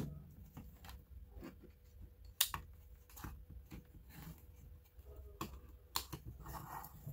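Clamp-on current probe and test wires being handled on a workbench: a few sharp clicks of the clamp's jaws snapping open and shut amid light rustling and shuffling.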